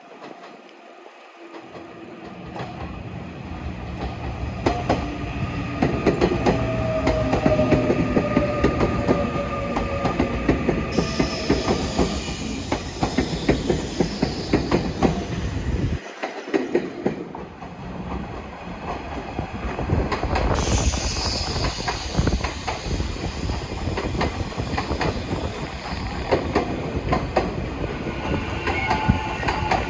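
Electric train running past, wheels clacking steadily over the rails, growing louder over the first few seconds. A whine falls slowly in pitch about six to ten seconds in. There is a brief drop in the sound a little past halfway, after which the train noise carries on.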